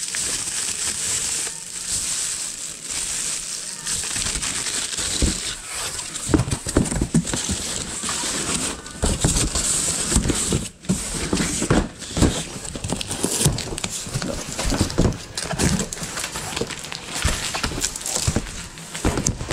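Paper and plastic wrapping crinkling as a wrapped item is handled. About five seconds in, irregular knocks and thumps join the rustling as things are shifted in a cardboard box and its flaps are moved.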